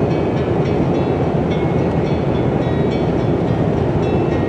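Steady road and engine rumble inside a car's cabin cruising at highway speed.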